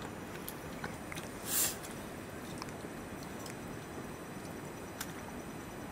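Eating rice by hand from a steel plate: soft squishing of rice being mixed and chewed, with small clicks of fingers against the plate. A short hiss about a second and a half in.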